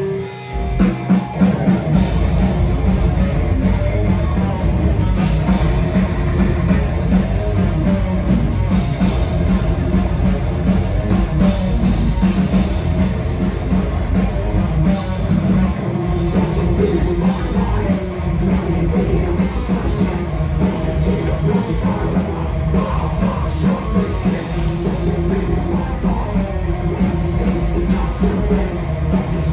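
Live heavy rock band playing loudly: electric guitar, bass guitar and drum kit, coming in together just after a brief break at the start.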